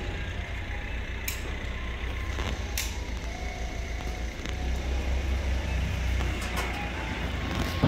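Steady low rumble of trucks and other vehicles in the background, with a few sharp clicks.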